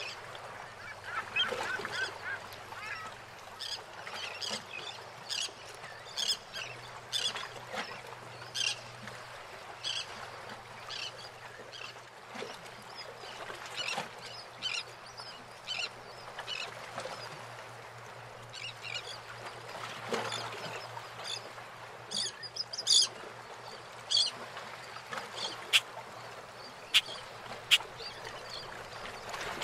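Birds calling in many short calls over the steady wash of water lapping around moored boats. A few sharp clicks or knocks stand out near the end.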